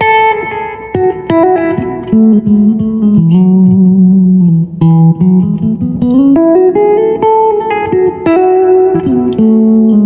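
Ibanez Prestige S5470F electric guitar playing a single-note melodic line, with several held notes and a smooth slide up in pitch about six seconds in.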